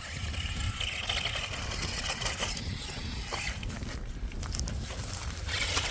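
A remote-control monster truck's small electric motor whining as it drives, with the noise of its tyres over the ground and a low steady rumble underneath.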